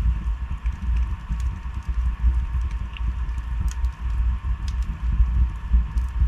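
Wood fire burning in a fireplace: scattered sharp crackles and pops over a low, uneven rumble.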